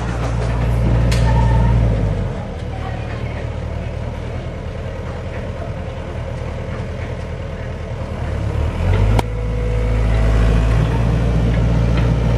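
Diesel engine of a SANY compact excavator running under load, then easing back for several seconds and picking up again about nine seconds in as the arm moves. A single sharp knock comes just after the engine picks up.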